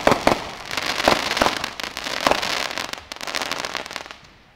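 Aerial fireworks bursting: several sharp bangs over a dense, fast crackle, which dies away near the end.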